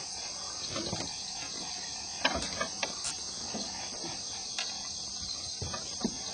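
Night insect chorus of crickets, a steady high shrill hiss, with several scattered sharp clicks and knocks on top, the loudest a little over two seconds in.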